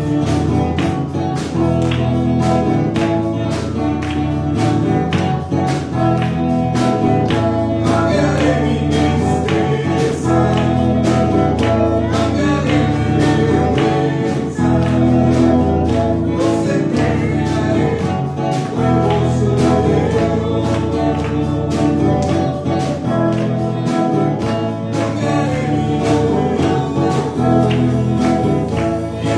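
Spanish-language worship song: a man singing into a microphone over instrumental accompaniment with a steady beat.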